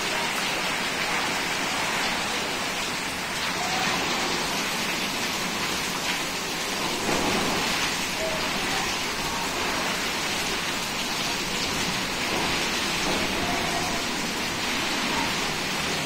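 Heavy rain falling steadily, with water streaming off a roof edge and splashing onto a tiled floor.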